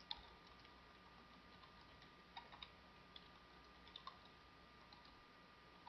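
Faint, scattered computer keyboard key clicks from typing, over near-silent room tone.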